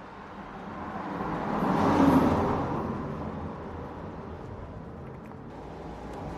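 A road vehicle passing by, its noise swelling to a peak about two seconds in and then fading away.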